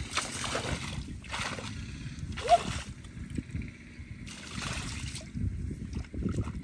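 Hands and bare feet splashing and sloshing in shallow muddy water in a rice-field ditch, in several separate surges, while feeling for catfish. One short, sharp squeak about two and a half seconds in.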